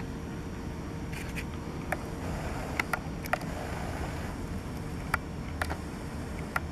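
Steady low rumble of wind on a handheld camera's microphone, with about nine sharp short clicks scattered through it.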